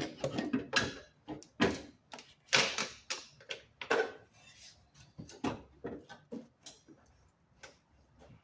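Irregular clicks and knocks of hand tools and parts being handled during spark plug removal on a Toyota Prius engine. They are thickest in the first few seconds, then come more sparsely.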